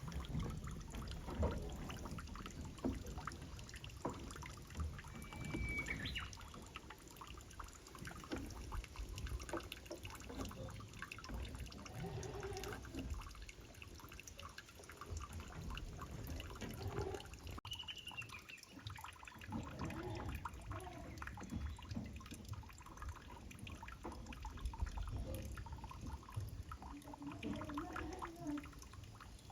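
Wind buffeting the microphone in gusts, a low rumble with rustling and small knocks, and a few faint, short pitched calls now and then.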